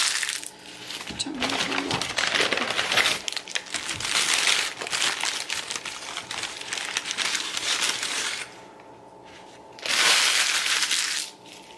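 McDonald's yellow paper sandwich wrapper being crinkled, unfolded and crumpled by hand in long stretches of crackling. There is a short lull about eight and a half seconds in, then a loud burst of crumpling near the end.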